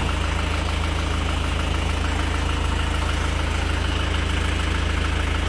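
Small farm tractor's diesel engine running steadily in gear as it drives forward, with an even, regular beat and no sign of the squeal that the owner complains of in the clutch or gearbox.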